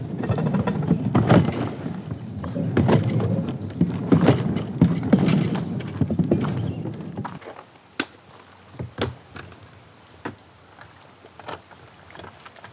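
Plastic kayak hull rolling over a portage track of wooden rollers: a continuous rumble with rapid clacking that stops about seven seconds in. A few separate knocks follow.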